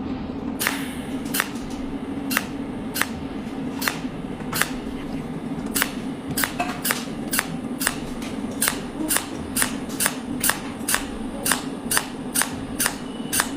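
Small mechanism running with a steady low hum and sharp regular clicks, about one and a half a second at first, quickening to over two a second toward the end.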